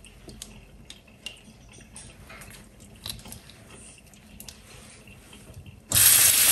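Soft clicks, taps and drips of wet, thawed giant freshwater prawns being handled, their shells and long claws knocking against a tray in a sink. Near the end a loud, steady hiss cuts in suddenly.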